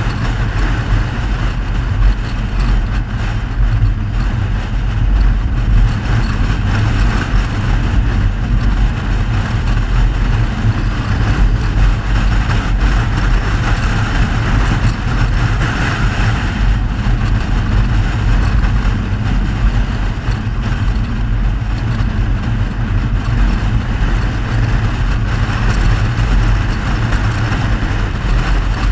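Steady driving noise from a Mercedes-Benz W126 on the move: a constant low rumble with a hiss above it and no sudden events.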